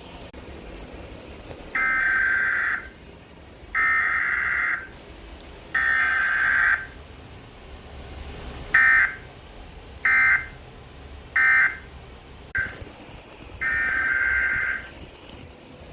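Emergency Alert System SAME data bursts for a Required Weekly Test, a harsh two-tone digital warble. Three header bursts of about a second each, then three short end-of-message bursts, then another long header burst starting near the end.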